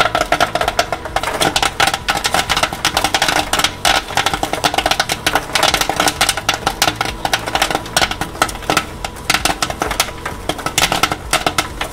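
Popcorn kernels popping in hot oil in a popcorn machine's kettle, a dense, continuous crackle of rapid pops at the height of the batch.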